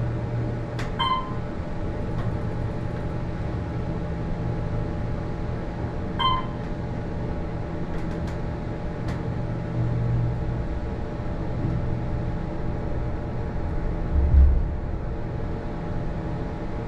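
Slow freight lift's electric drive running with a steady hum. Two short beeps come about a second in and about six seconds in, a few sharp clicks follow, and a low thump comes near the end.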